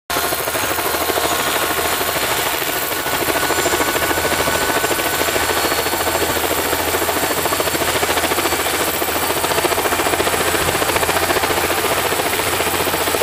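Sikorsky S-58-type helicopter running on the ground with its rotors turning, giving a steady rapid blade chop over the engine noise. It gets slightly louder about three and a half seconds in.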